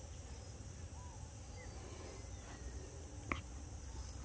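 Steady high-pitched insect chorus, with one sharp click about three seconds in.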